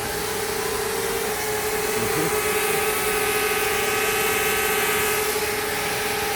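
Small camera drone hovering, its propellers giving a steady whining hum with overtones over a constant rushing noise.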